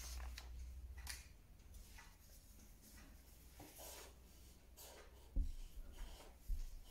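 Felt-tip marker strokes scratching faintly on a sheet of paper held against a wall, a few separate strokes. A couple of soft low thumps come about five and six and a half seconds in.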